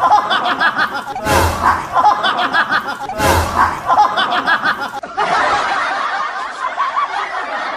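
A canned laughter sound effect: a short clip of snickering laughter repeats about every two seconds, each time starting with a low thump, then gives way to a more even stretch of laughter about five seconds in.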